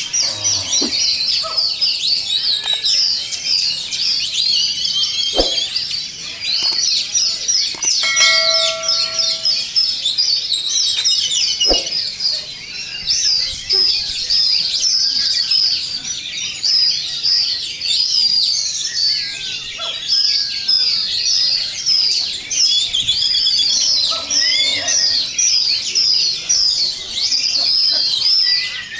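A dense chorus of many songbirds singing at once, the sound of an Indonesian songbird contest, with fast overlapping chirps and trills. A short steady tone sounds near the middle, and there are a couple of sharp knocks.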